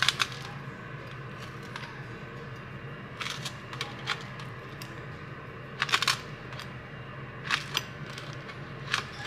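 Small kitchen knife cutting through a crisp thin-crust pizza on a metal baking tray: short crunching scrapes of the blade through the crust and against the pan, about six of them, the loudest around six seconds in.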